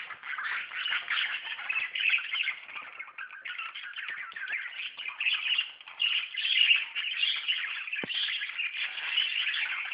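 A flock of budgerigars chattering and chirping continuously, with one sharp click about eight seconds in.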